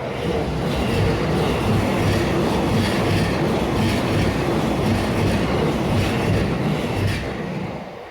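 JR Nambu Line electric commuter train passing close by, its wheels clattering in a steady rhythm over the rail joints; the sound comes up quickly at the start and fades away near the end.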